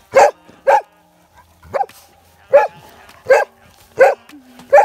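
A dog barking loudly: seven short, sharp barks spaced about two-thirds of a second apart, the third one weaker.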